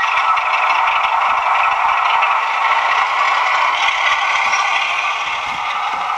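Sound decoder in a model Class 33 diesel locomotive playing its diesel engine sound through the loco's small speaker as it moves off. A steady, thin rattling clatter with no deep bass.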